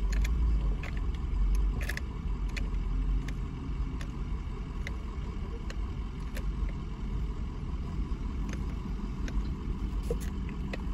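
Steady low rumble inside a parked car, with scattered small clicks and sips as a drink is drawn through a straw.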